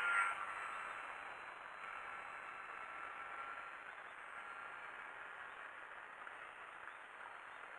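Electric motor and propeller of a small foam RC airplane whining in flight, a thin steady tone that is louder at the very start and then stays faint as the plane flies farther off, over a steady hiss.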